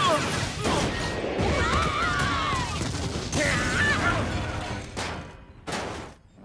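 Cartoon action sound effects: a dense clatter of crashes and blasts with gliding, squealing tones, ending in a sharp knock before dying away.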